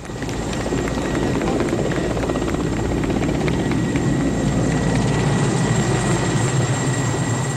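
Helicopter flying low overhead: a steady rapid chop from the rotor with a thin high whine, growing louder in the first second.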